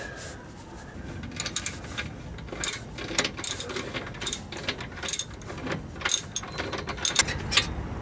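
Ratchet wrench clicking in short runs and metal tools clinking as a 14 mm exhaust flange nut is undone, a combination spanner holding the bolt.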